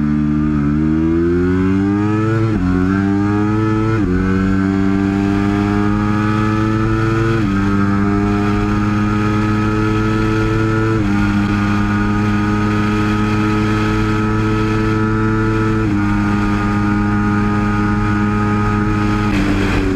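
Aprilia RSV4 1100 Factory's 1078cc V4 engine and exhaust under full-throttle acceleration, heard from the rider's seat. The engine note climbs in pitch through each gear and drops sharply at six quick upshifts, and the climbs grow longer and slower in the higher gears.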